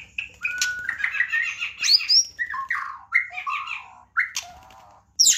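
White-rumped shama (murai batu) singing: a long, varied song of whistled notes, quick runs of repeated notes and downward slides, with a few sharp high notes.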